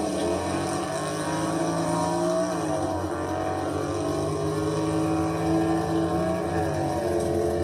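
Car engine running under acceleration, a steady multi-toned engine note whose pitch dips and recovers twice.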